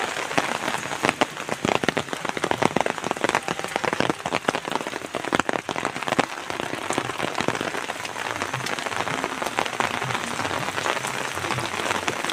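Rain falling, with many close, sharp drop hits that are densest in roughly the first half.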